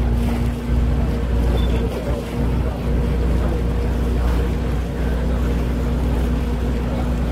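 Motorboat engine running steadily as the boat cruises, heard from on board: a constant low hum with a steady tone over the wash of water.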